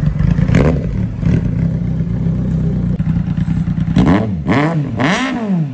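Kawasaki Z800 inline-four engine running at a steady idle, then revved in three quick throttle blips near the end, the pitch rising and falling with each.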